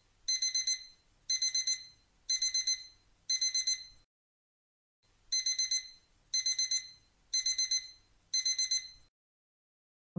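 Digital alarm beeping in quick bursts of four high beeps, one burst about every second. Four bursts sound, then a pause of about a second, then four more bursts before it stops.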